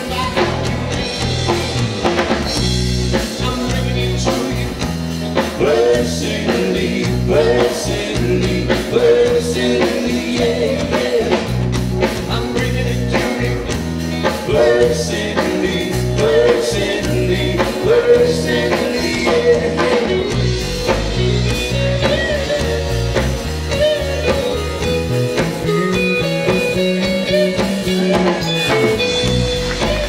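Live rock-and-roll band playing an instrumental stretch of a song: electric guitar over bass guitar and drum kit, with bending guitar notes.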